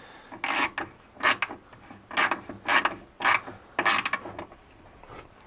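Ratchet wrench with a 10 mm socket clicking in short bursts, about six strokes over four seconds, as it tightens an exhaust mounting bolt.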